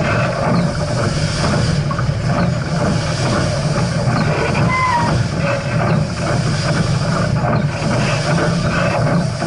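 Steam train running, a steady loud rumble and clatter.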